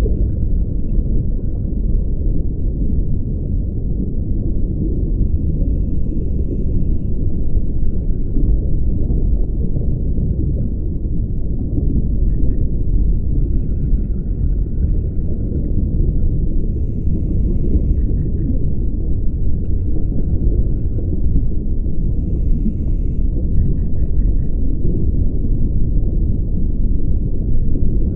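Steady muffled low rumble of water noise picked up through an underwater camera housing. Faint hissing breaths from a diver's scuba regulator come back every four to six seconds.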